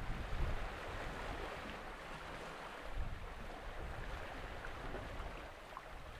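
Waterfront ambience: a steady hiss of wind and water, with uneven low gusts of wind buffeting the microphone.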